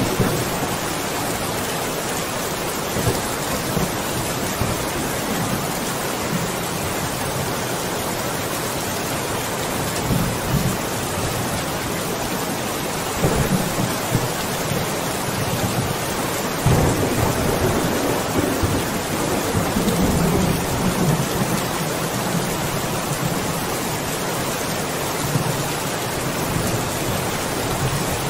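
Steady rain falling, an even hiss, with low thunder rumbling several times, loudest a little past the middle.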